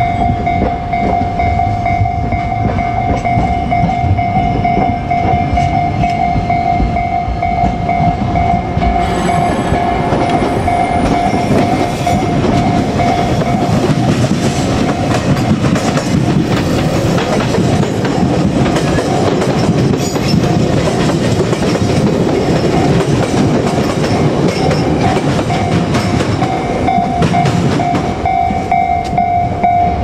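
Japanese level-crossing warning bell ringing steadily while a JR Kyushu 817 series electric train runs over the crossing close by. The train's rumble and wheel clatter build about ten seconds in and ease off near the end, with the bell still ringing.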